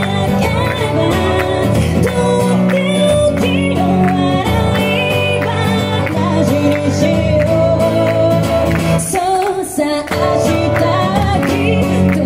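A woman singing live into a microphone while playing an acoustic guitar, amplified through a PA. Her voice breaks off briefly about nine seconds in, between sung lines, while the guitar carries on.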